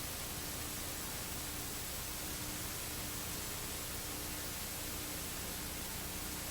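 Steady hiss of recording noise, with a faint steady low hum underneath.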